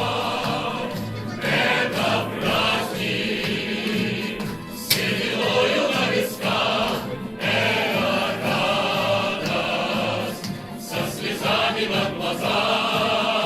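Choir singing to musical accompaniment, the sung phrases broken by short pauses.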